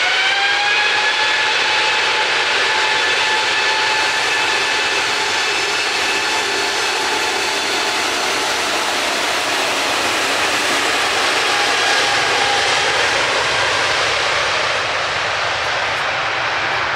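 Large jet airliner's engines running at high power: a whine rises in pitch at the start as the engines spool up, then holds steady over a loud, constant rushing jet noise.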